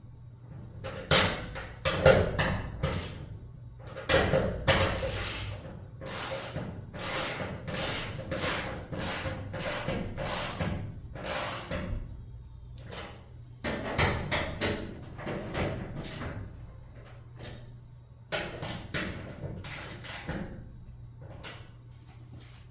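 A rapid, uneven run of knocks and rattles, about two a second, from work on a garage door's steel reinforcement struts, the loudest knocks in the first few seconds.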